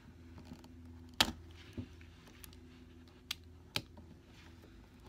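Razor-blade knife cutting the nipple off a plastic pacifier: four sharp clicks and snaps of blade and plastic, the loudest about a second in, over a faint steady hum.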